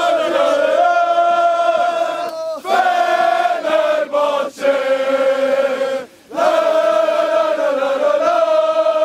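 A group of men singing a football supporters' chant in unison. The melody is held in long phrases with brief breaks between them.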